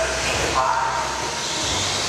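1/10-scale electric RC cars driving on an indoor dirt track: whining motors over steady tyre and track noise.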